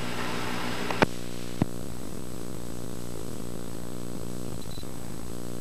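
Steady hum and hiss from VHS tape playback, with two sharp clicks about one and one and a half seconds in.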